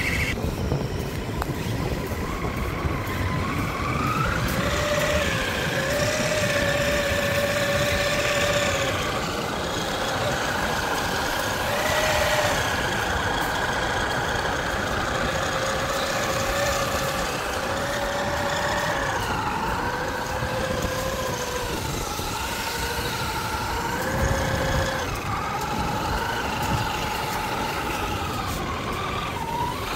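Radio-controlled cars driving, their motors whining in pitches that rise and fall with the throttle, over a steady rough noise.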